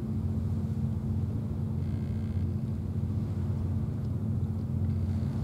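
Steady low mechanical hum at a constant pitch.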